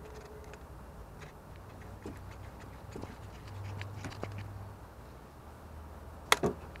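Faint scattered clicks and ticks of pliers working a spring hose clamp on a coolant hose, with two sharper clicks near the end.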